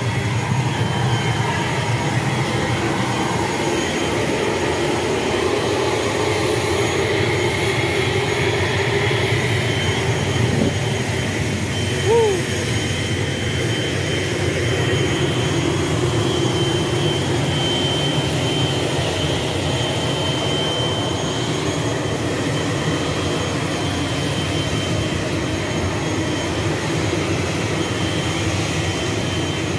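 ATR 72-600 turboprop engine running steadily: a loud, even rush with a high, steady whine over it. A short chirp rises and falls about twelve seconds in.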